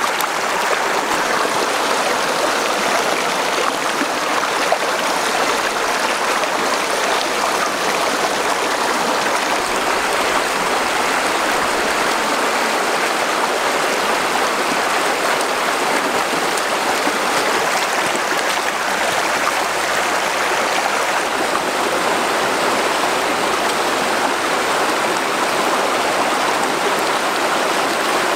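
Flowing river water rushing steadily, a continuous even wash.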